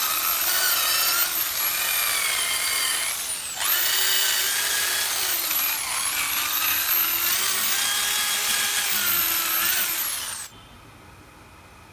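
Electric drill spinning a wire cup brush against a steel wheel rim to scrub off rust: a high motor whine, wavering in pitch, over the scratching of the wires. It drops out briefly about three and a half seconds in, starts again, and cuts off suddenly about a second before the end.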